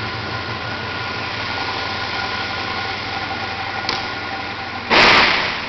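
Steady mechanical running noise with a faint hum. About five seconds in, a loud burst of rushing noise fades away over about half a second.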